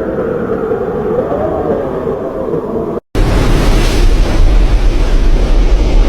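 Strong wind. For the first three seconds it howls with a wavering pitch. After an abrupt cut, loud gusty wind buffets the microphone with a deep rumble.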